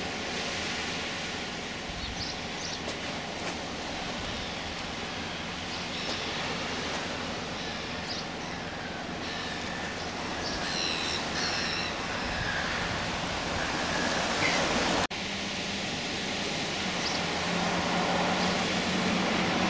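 Steady outdoor rushing noise, with a few faint high chirps in the middle. After a cut about three-quarters of the way through, a low steady hum joins it.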